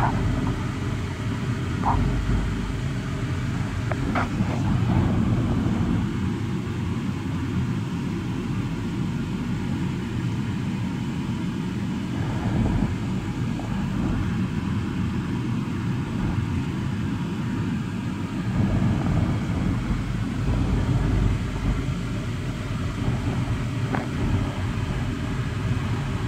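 Car cabin noise while driving: a steady low rumble of engine and tyres, heard from inside the car.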